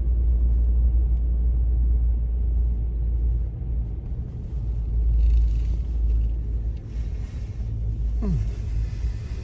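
Pickup truck with a camper on its bed, its engine running with a steady low rumble. A brief falling tone sounds near the end.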